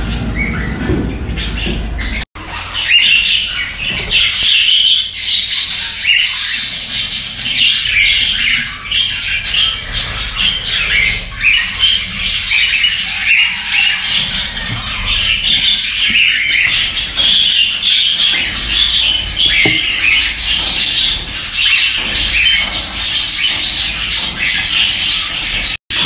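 Cockatiel chicks calling in the nest: a loud, unbroken chorus of rapidly repeated high, harsh calls, the begging calls of nestlings. A low rumble in the first two seconds stops abruptly at a short break about two seconds in.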